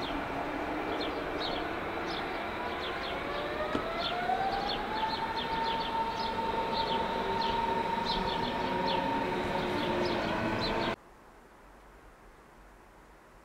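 Berlin S-Bahn class 480 electric train pulling away from a station. Its traction motors whine in rising tones that level off into a steady high whine over the rumble of the train, and birds chirp throughout. The sound cuts off suddenly about eleven seconds in, leaving only a faint hiss.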